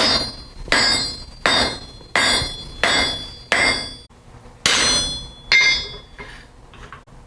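Blacksmith's hand hammer striking half-inch round steel bar on an anvil, each blow ringing metallically. There are six blows in a steady rhythm, then a short pause, two more blows and two lighter taps near the end.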